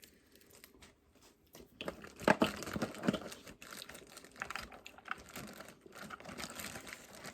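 Snow crab boil being eaten by hand: a run of irregular crackling clicks and snaps of crab shell being cracked and picked apart, starting about a second and a half in, loudest a little after two seconds.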